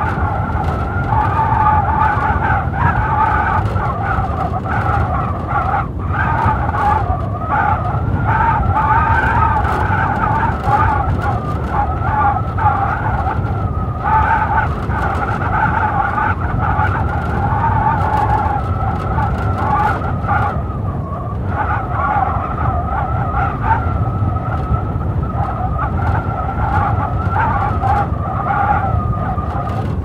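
Blizzard wind howling steadily: a low rumble of gusts under a wavering whistle in two pitches.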